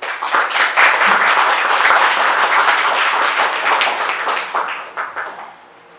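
Audience applauding, loud, starting all at once and thinning to a few last claps near the end.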